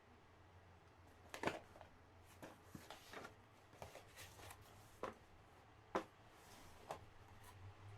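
Packaging being handled: soft rustling broken by a scattering of light clicks and taps, about one a second, the sharpest ones near the start and twice in the second half.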